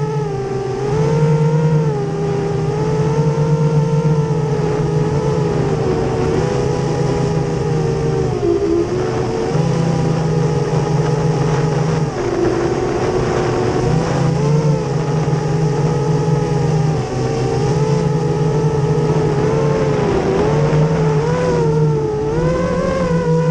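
Brushless motors of an FPV racing quadcopter whining in flight, their pitch rising and falling with throttle. Under the whine runs a strong low steady hum that drops out briefly a few times.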